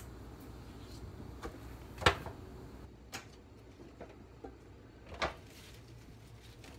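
A few sharp snaps of leafy vegetable stems being broken off by hand, the loudest about two seconds in and another about five seconds in, with softer clicks between.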